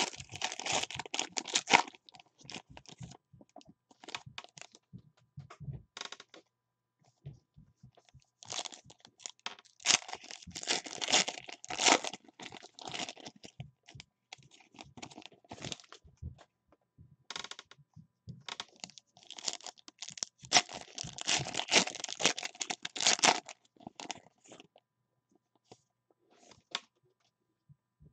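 Foil wrappers of trading card packs being crinkled and torn open by hand, in three bouts of rustling and tearing with short crackles between them.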